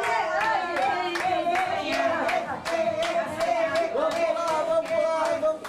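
Rhythmic hand clapping, about three claps a second, under voices singing long held notes.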